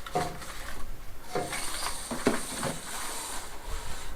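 Bamboo roll-up blind being handled and let down, its slats and cord rustling, with a few light knocks and a brief hiss about halfway through.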